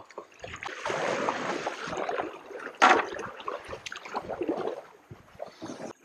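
Kayak paddle dipping and pulling through a fast river current, water splashing and gurgling around the blade and hull, with one louder splash near the middle.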